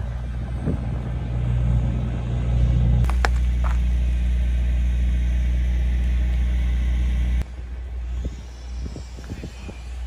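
Engine of heavy construction machinery running steadily with a low hum. The sound changes abruptly about three seconds in, with a couple of sharp clicks, and drops away suddenly past seven seconds, leaving a quieter engine hum.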